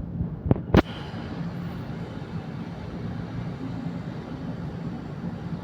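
Steady city traffic rumble, with two sharp bangs in the first second.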